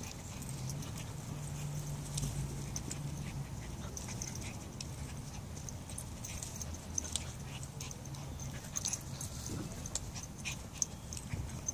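A Toy Manchester Terrier and a Labradoodle play-fighting, with low dog growling in two long stretches and scattered light ticks and rustles.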